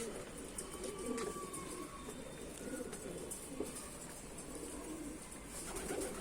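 Pet pigeons cooing again and again, low warbling coos following one after another, which the owner takes for the birds asking for grain.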